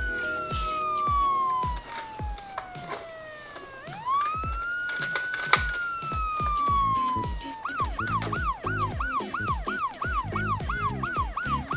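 Electronic siren of a toy ambulance miniature car: two slow wails, each rising quickly and then falling over about three seconds, then about 8 seconds in it switches to a fast yelp of about three and a half sweeps a second. A steady low thumping beat runs underneath.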